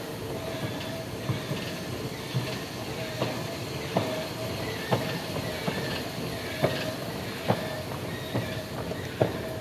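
Subway station escalator running: a steady mechanical hum with a held tone and a sharp clack repeating evenly a little more than once a second.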